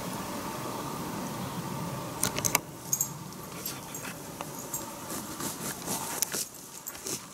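Quiet woodland background turned up to a steady hiss, then from about two seconds in a run of irregular sharp clicks and rustles.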